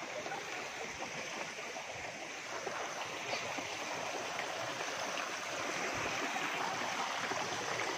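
Water of a rocky mountain stream flowing steadily over boulders.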